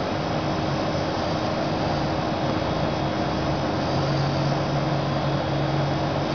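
Steady background hum and hiss of room noise, with no distinct event; a low hum grows slightly stronger about four seconds in.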